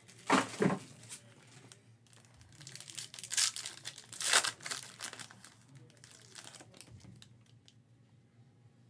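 Foil wrapper of a Panini Court Kings basketball card pack crinkling and tearing open in several bursts, the loudest between about 2.5 and 5 seconds in. Near the end come a few faint clicks as the cards inside are handled.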